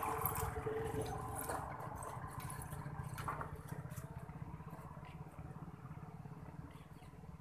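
An engine running with a steady low pulsing rumble that slowly fades away, with a few light clicks over it.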